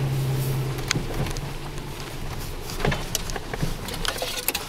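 Off-road vehicle engine running steadily, dropping away about a second in, followed by scattered clicks and crackles.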